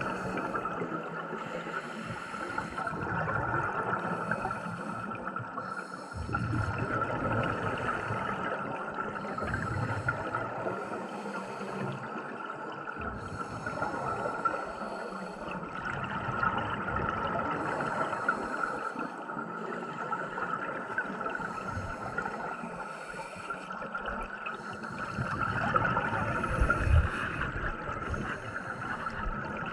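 Scuba regulator breathing heard underwater: a hiss on each inhale alternating with rumbling bubbles on each exhale, repeating every few seconds, over a steady high-pitched hum.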